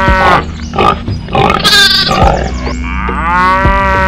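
Cow moo sound effects: one long moo trailing off just after the start, a short jumble of other noises, then a second long moo beginning about three seconds in, over a steady low hum.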